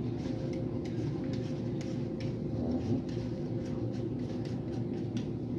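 Potato being peeled with a vegetable peeler: faint, quick scraping ticks over a steady low hum.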